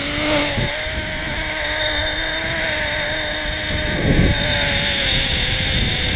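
Tandem rope pulley running along a steel zipline cable: a steady whine that slowly falls in pitch, over wind noise, with a brief low rumble about four seconds in.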